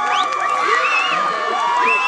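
Crowd of spectators cheering and shouting, many voices yelling over one another.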